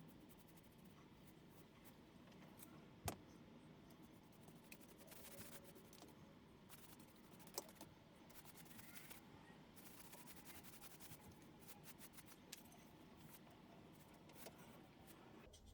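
Very faint paintbrush strokes on MDF: a soft, uneven scratchy brushing. Two sharp taps stand out, about three seconds in and again about halfway through.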